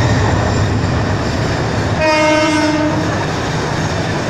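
A train horn sounds one steady note for just under a second, about halfway through. Underneath runs the steady noise of the moving train, heard from on top of it.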